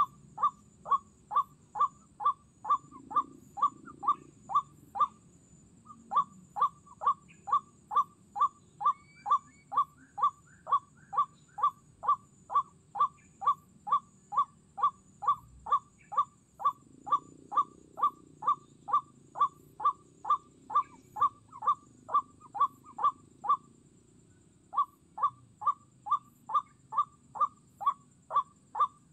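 White-breasted waterhen's 'kruak' call played as a trapping lure: one short note repeated at a very even pace of about two a second, with two brief breaks.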